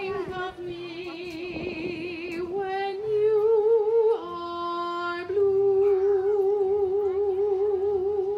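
A woman singing solo in long held notes with wide vibrato; the note drops about four seconds in and rises again about a second later.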